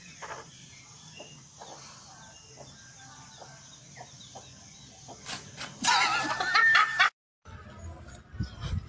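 Faint scattered ticks and rustles, then, about five seconds in, a chicken clucking loudly for about two seconds before the sound cuts off suddenly; a few faint clicks follow.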